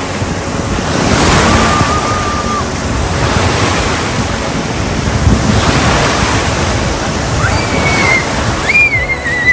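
Steady rush of water-park waves and splashing water, with wind buffeting the microphone. A few thin high calls sound over it about a second in and again near the end.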